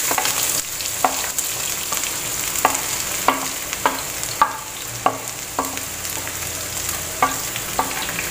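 Sliced onions sizzling as they go into hot coconut oil in a pan, with a wooden spatula knocking against the plate and pan in a string of short taps as it scrapes them in.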